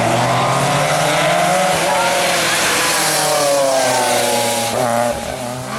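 Rally car engine under hard driving, its pitch climbing and falling as the car accelerates and lifts, over loud tyre and road noise. The pitch breaks and drops briefly about five seconds in, as at a gear change.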